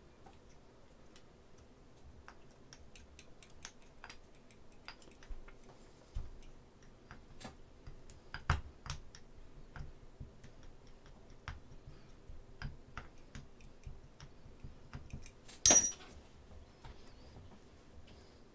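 Scattered small ticks and clicks of a drill bit being twisted by hand into a resin model part, with one sharp, louder click about three-quarters of the way through.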